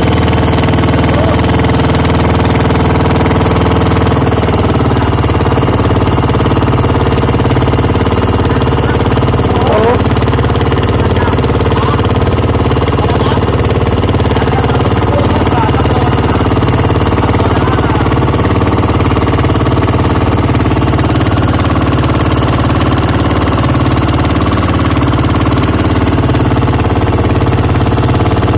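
An outrigger boat's engine running steadily at a constant speed while the boat is under way.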